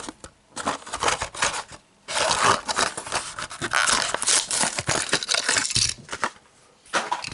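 Toy car blister packaging being opened by hand: plastic and cardboard crinkling, crackling and tearing in irregular stretches with short pauses.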